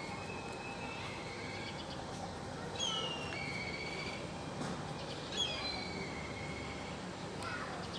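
A small puppy whining: several high, drawn-out cries that fall in pitch, coming in three groups.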